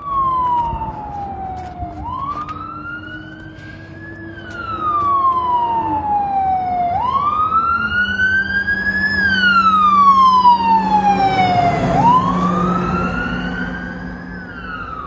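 Fire engine's siren wailing, sweeping up and down in slow cycles of about five seconds. It grows louder with the truck's engine noise as the truck passes, loudest a little past halfway, then fades as it drives away.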